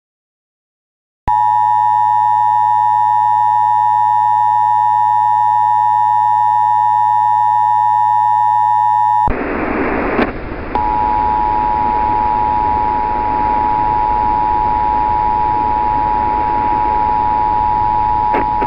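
Emergency Alert System attention signal: a loud, steady two-tone alarm that holds for about eight seconds and cuts off abruptly. After a burst of radio static, a second steady tone sounds through the hiss for about eight seconds, ending just before the voice message.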